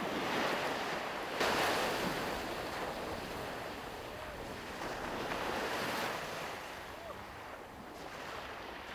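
Small waves breaking and washing onto a sandy beach, the surf rising and falling every few seconds, with some wind on the microphone.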